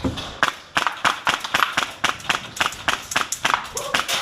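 A rapid, irregular series of sharp clicks and snaps, about five a second.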